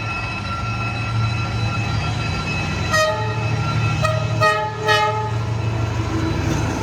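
A train passing with a steady low engine drone. The locomotive's horn sounds a short toot about three seconds in, then two more short blasts around four and five seconds.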